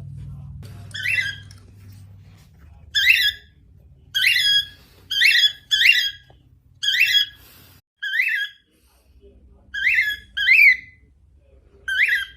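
Female normal grey cockatiel giving short, sharp chirping calls, about ten at irregular intervals of roughly a second, each one bending in pitch.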